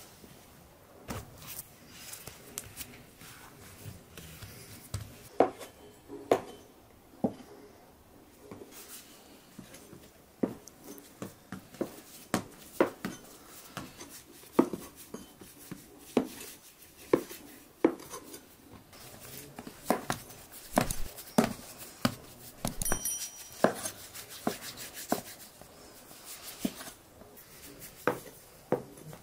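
Hands working soft dough: kneading it in a metal tray, then shaping it into balls and setting them down, heard as irregular soft knocks and clicks, with one short ringing clink a little past the middle.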